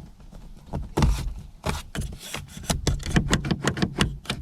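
Plastic interior door handle of a new Lada Vesta being yanked and rocked by hand, clicking and creaking, with quicker repeated clicks from about two and a half seconds in. The owner hears a squeak he cannot place.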